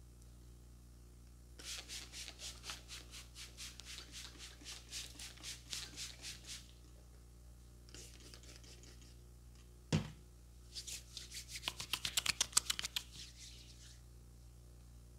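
Hands rubbed briskly together, a quick, rhythmic swishing that grows louder near the end. Earlier comes a steadier run of rubbing strokes, about four a second, and about two-thirds through, a single sharp thump.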